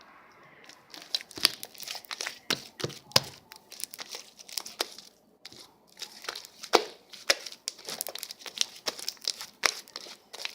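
Slime being squished and pressed by hand, crackling and popping in many irregular sharp clicks, starting about a second in.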